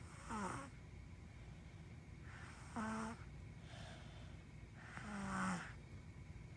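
Snoring: three snores about two and a half seconds apart, the first sliding down in pitch, the later two holding a steady low pitch.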